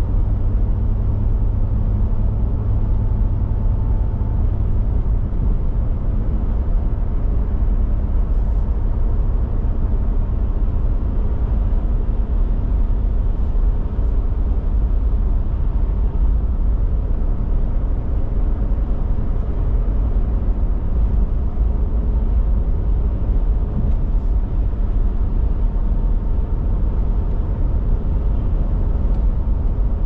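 Steady in-cabin road noise of a car driving along a highway: a low, even rumble of tyres and engine with no changes.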